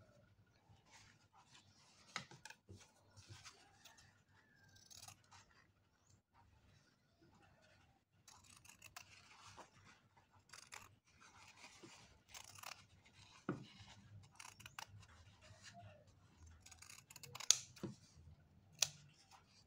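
Faint scissors cutting fabric, with rustling of the cloth as it is handled and a few sharp clicks of the blades closing, the loudest near the end.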